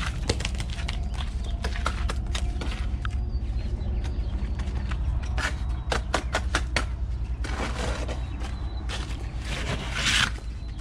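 Scattered sharp clicks and knocks in two clusters, then two short scraping sounds near the end, over a steady low rumble.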